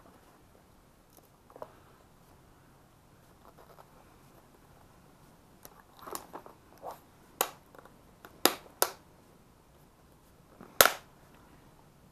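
Hard plastic Pelican case and its cables being handled and closed: scattered light clicks and knocks, then a few sharp plastic clacks in the second half, the loudest a close pair about eight and a half seconds in and one more near eleven seconds.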